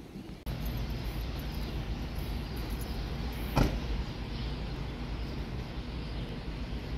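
Steady low hum of city street noise, like idling traffic, starting abruptly about half a second in, with one sharp knock a little past the middle.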